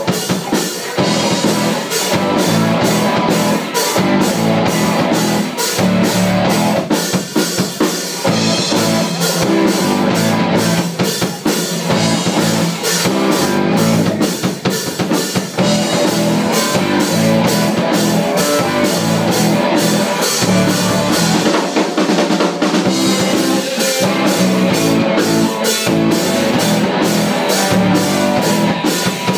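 Live rock band playing an instrumental passage: distorted electric guitars and electric bass over a Tama drum kit keeping a steady beat.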